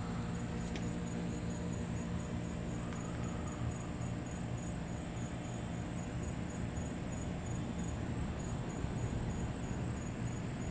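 Insects chirping in a high, evenly pulsing trill, over a constant low hum.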